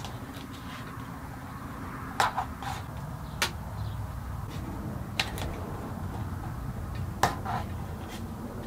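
Glued-up wooden box slices handled on a wooden workbench while being wrapped with painter's tape: a few separate light taps and clicks of wood on wood and on the bench, over a low steady hum.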